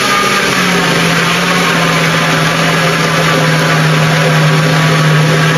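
Countertop blender running steadily at one speed, mixing a pão de mel batter of milk, honey, cocoa, sugar, spices and flour.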